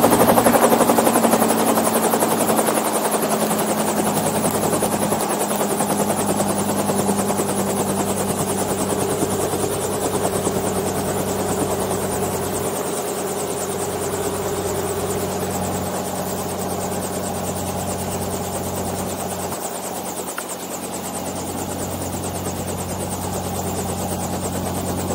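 Small two-blade helicopter on the ground after landing, its engine and rotor still running: a steady drone with a low hum that sags slightly in pitch and grows gradually quieter as the rotor winds down.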